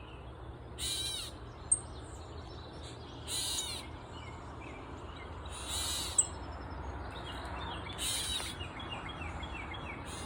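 Gray catbird giving a harsh, scratchy call four times, about every two and a half seconds. Two sharp clicks come between the calls, and faint thin notes from other birds can be heard.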